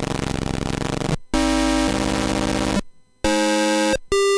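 Atari POKEY sound chip synthesizer playing polyphonic chords from a MIDI keyboard: a pretty dirty-sounding, buzzy chiptune tone. The chords are each held for about a second, with short silent breaks between them.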